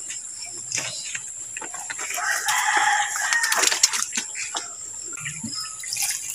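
A rooster crowing once, about two seconds in, among a few light knocks.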